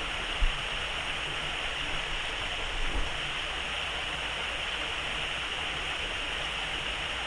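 Small waterfall on a mountain stream splashing into a pool, a steady rushing of water. Two brief low thumps come about half a second and three seconds in.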